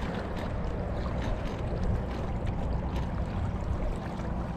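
Water lapping and trickling along the hull of a moving kayak, with small splashes and a low steady wind rumble on the microphone.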